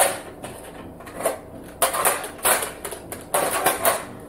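Plastic Nerf foam-dart blasters clacking and clattering as they are fired, cocked and reloaded: a run of short sharp clatters, the loudest at the very start and again about two and three and a half seconds in.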